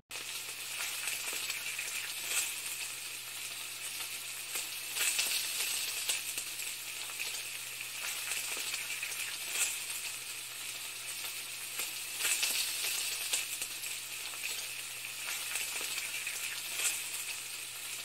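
Food sizzling in a hot pan: a steady frying hiss with scattered crackles and pops, over a faint steady low hum.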